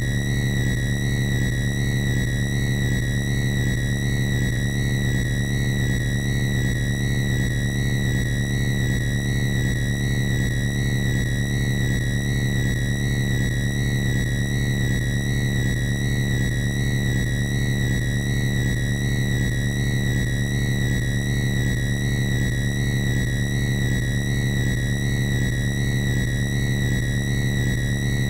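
Synthesized vehicle-driving sound effect: a steady electronic drone made of a low hum under a high whine, with a regular wavering warble and no change in pitch or loudness.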